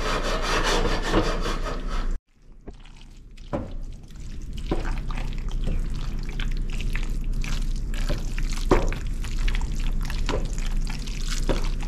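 Wooden spoon stirring and tossing spaghetti in creamy Alfredo sauce in a stainless steel pot: wet squelching and sliding of sauced pasta, with scattered light knocks of the spoon against the pot. It breaks off abruptly about two seconds in, after a stretch of steady hiss, then resumes.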